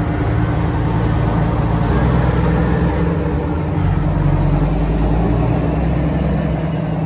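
Large diesel engine running steadily close by, a deep continuous drone whose lowest rumble grows heavier about four seconds in.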